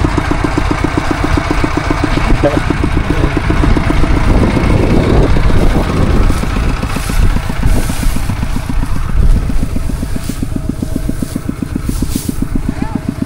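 Two-wheel walking tractor's single-cylinder diesel engine running with an even, rapid chug.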